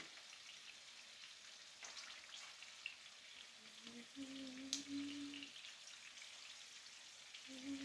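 Long green chili peppers frying in oil in a nonstick pan, a faint steady sizzle with small crackles, as tongs turn them. A single sharp tap, likely the tongs against the pan, comes about five seconds in.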